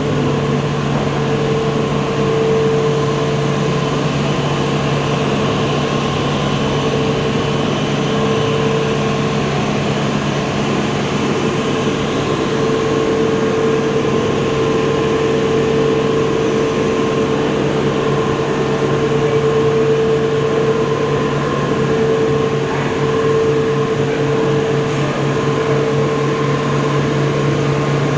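F45 sliding-table panel saw running steadily, its motor and spinning saw blade giving a constant hum.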